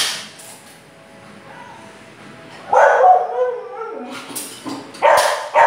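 Samoyed dog barking and yipping, eager to get at a chicken held up out of its reach. The first call comes about halfway through and is drawn out, followed by a few short barks near the end.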